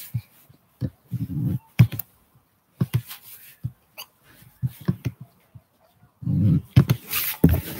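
Handling noise from a device being moved against clothing: scattered knocks and clicks, with a few short muffled bursts, the longest about a second and a half in and about six and a half seconds in.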